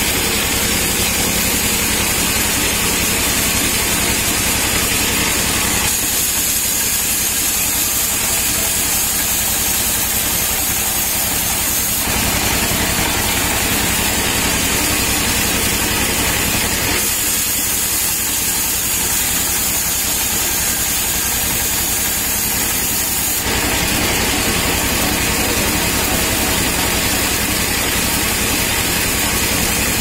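Large band-saw sawmill running steadily, its blade cutting through palm-trunk wood as logs and planks are fed along the table. A continuous machine drone with a strong hiss on top, shifting in tone every five or six seconds.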